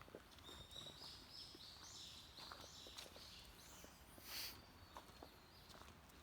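Faint footsteps crunching on a trail, with a bird singing a run of high whistled notes that step up and down over the first three seconds or so. A short rustle comes about four seconds in.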